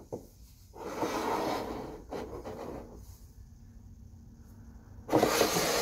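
Ceramic mugs being slid and set down on a tabletop: a scraping rub about a second in, lasting a second or so, then a louder rustling handling noise near the end.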